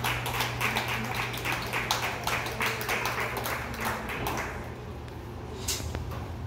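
Scattered applause from a small crowd of spectators, dying away about four and a half seconds in, over a steady low hum.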